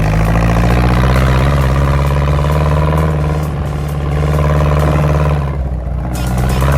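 Dune buggy engine running hard over sand, its pitch rising and falling with the throttle, with a short drop about five and a half seconds in before it picks up again.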